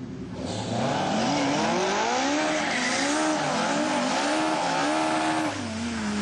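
A drag-racing car launching off the start line, its engine revving hard and climbing in pitch through several quick dips as it shifts up through the gears. Near the end the engine note drops and its pitch falls away.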